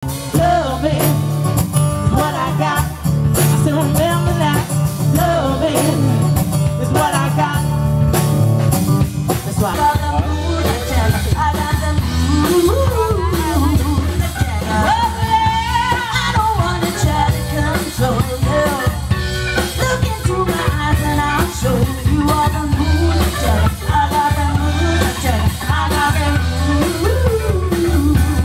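Live rock band playing: a woman sings lead over electric guitar, bass guitar and a drum kit.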